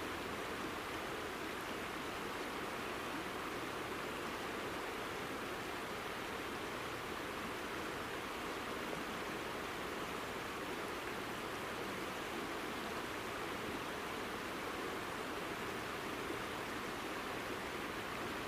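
Azusa River, a clear mountain river, flowing steadily over a gravel bed, giving an even rushing of water with no changes.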